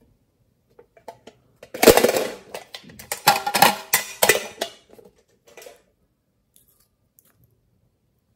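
Small printed metal tin box with a wire handle being handled and opened. Its lid, body and handle clank and rattle with a brief metallic ringing for about three seconds, starting near two seconds in.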